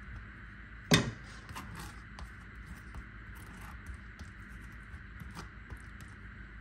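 A wooden spatula scraping and spreading soft filling over a layered wafer sheet, with faint light ticks. There is one sharp knock about a second in.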